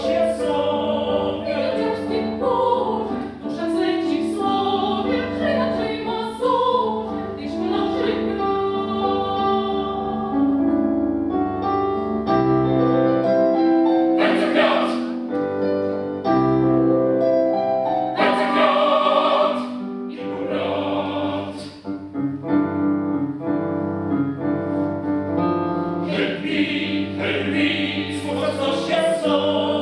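A chamber choir sings full sustained chords with piano accompaniment underneath.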